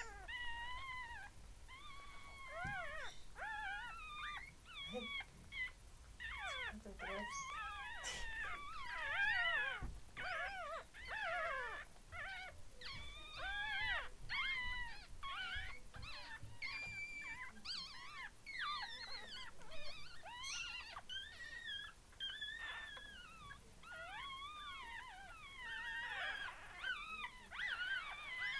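A litter of newborn Yorkshire terrier puppies squeaking and whining, several at once. The short, high cries rise and fall in pitch and keep coming one after another.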